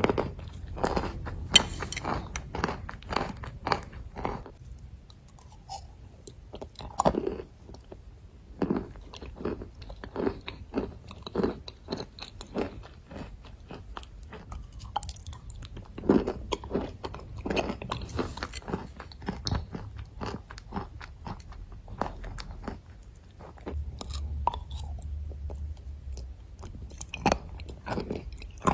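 A person chewing and crunching pieces of dry white clay, with many sharp, irregular crunches between quieter stretches of chewing.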